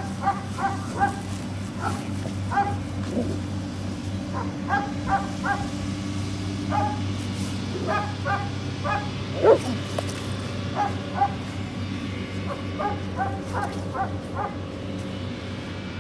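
German Shepherd protection dog on a bite suit, letting out short high-pitched whines and yips in quick clusters of three or four throughout, with one louder brief low sound about halfway through. A steady low engine hum runs underneath.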